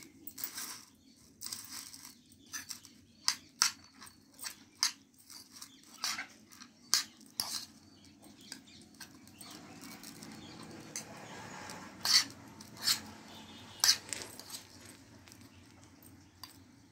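A metal spoon stirring a wet salad of soaked moong dal and chopped vegetables in a bowl, clinking against the bowl in irregular sharp taps. Softer steady scraping runs through the middle.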